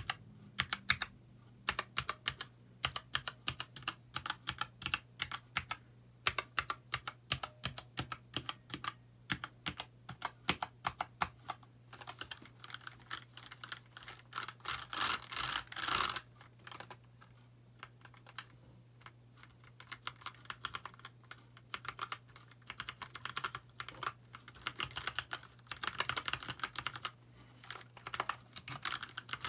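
Continuous typing on a Keychron K2 aluminum-frame mechanical keyboard with brown (tactile) switches: a fast, irregular stream of key clicks that thins out for a few seconds just past the middle and then picks up again.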